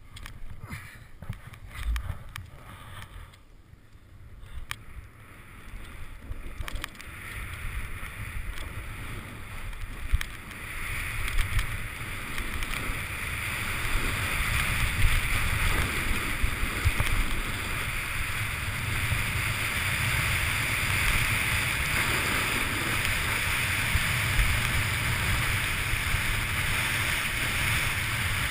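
Snowboard riding down through deep powder, heard from a helmet-mounted action camera: a rush of wind and snow hissing under the board. A few knocks and bumps come in the first seconds, then the sound builds into a steady, louder rush from about ten seconds in as the rider picks up speed.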